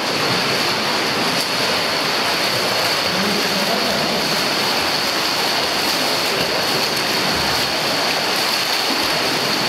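Continuous splashing and churning water of an indoor swimming pool as a swimmer does front crawl along the lane, heard as a steady rushing hiss. A thin steady high-pitched tone sits over it.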